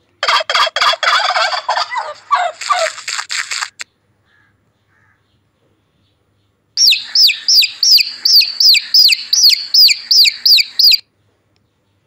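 A turkey gobbling: a rapid rattling call lasting about three and a half seconds. After a short pause, chicks peep loudly in a steady series of high, falling notes, about three a second, for around four seconds.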